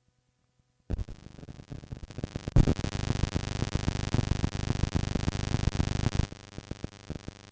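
Synthesizer-like music from cassette tape playback, cutting in abruptly about a second in with a dense, rapidly pulsing texture. It gets louder about two and a half seconds in and drops back to a quieter level near the end.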